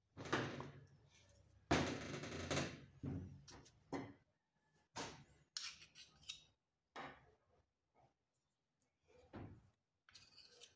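Irregular knocks, clatter and scraping as a metal dental articulator is handled on a stainless steel bench and a metal spatula spreads plaster onto its base. The loudest clatter comes in the first three seconds, followed by scattered smaller taps and scrapes.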